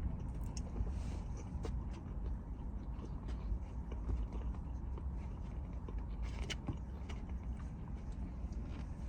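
A person eating: chewing and biting, with scattered small clicks, over a steady low rumble.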